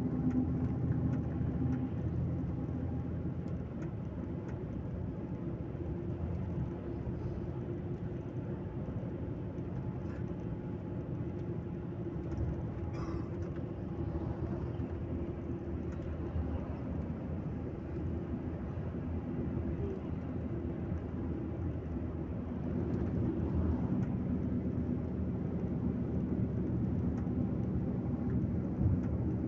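Intercity coach driving on the highway, heard from inside the passenger cabin: a steady low rumble of engine and road noise with a constant low engine hum.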